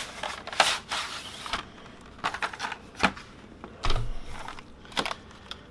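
Plastic keycaps being taken out of their packaging: scattered light clicks and rattles with brief rustling near the start, and a dull bump about four seconds in.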